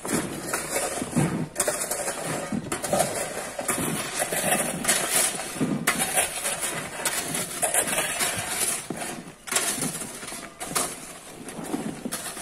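Broken rocks and gravel clattering and scraping as they are gathered by hand and dropped into basins: a dense, irregular run of stone-on-stone knocks.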